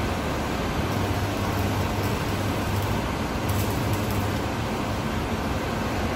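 Electric arc welding on a steel lid: the arc struck in two short runs of about a second each, the welding machine's hum rising during them, over a steady mechanical hum.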